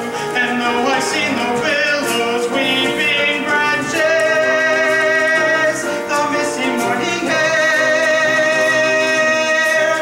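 Live stage-musical accompaniment on piano, playing a slow instrumental passage between sung verses, with long held notes.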